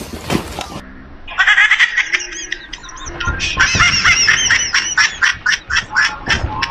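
Dog yelping in fright, a rapid string of short, high, squealing yelps from about a second and a half in, after a couple of knocks near the start.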